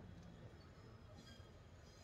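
Near silence: a faint, steady low rumble in the background.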